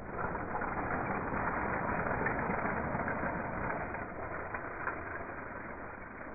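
A 3D-printed RC tank driving on its brushed 540 motor drive: the plastic track links and gears rattle and clatter steadily. The sound grows slowly fainter over the last couple of seconds as the tank moves away.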